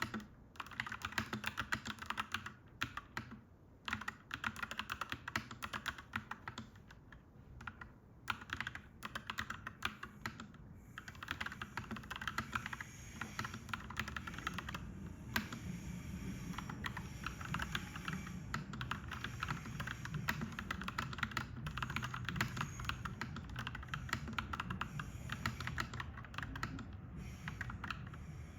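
Fast typing on a clacky mechanical keyboard, in runs of keystrokes broken by brief pauses. A low rumble rises underneath from about halfway through.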